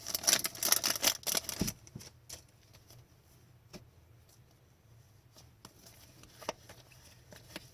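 Hockey trading cards being handled: a quick run of cards flicked and slid against each other for about a second and a half, then only a few light taps and clicks.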